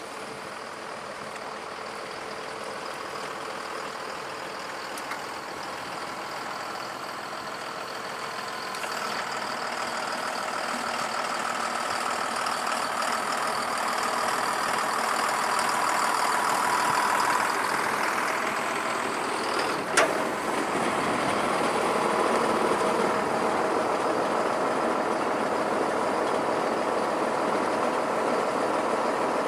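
John Deere tractor's diesel engine running steadily, growing gradually louder, with one sharp click about twenty seconds in.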